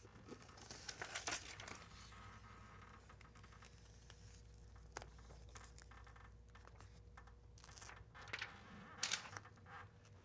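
Paper release liner crinkling and rustling as it is peeled off self-adhered butyl flashing tape and the tape is smoothed on by hand, with two louder bouts, about a second in and again near the end.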